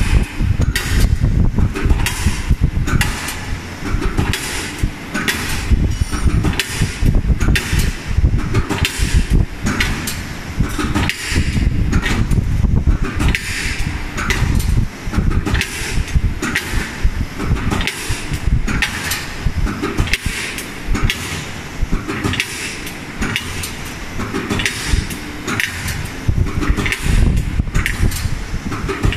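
Hydraulic tube-punching machine at work on steel tube: repeated sharp clanks, about one or two a second, as the punch dies pierce each hole while the tube is fed forward, over a steady low rumble of the machine running.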